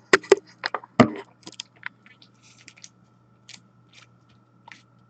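Sharp clicks and small knocks of things being handled, several close together in the first second, then scattered light rustles and ticks.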